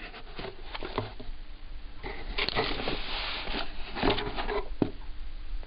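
Handling noise as a new Gene Berg gear shifter is picked up and turned over: rustling with scattered light clicks and knocks, the rustling heaviest in the middle.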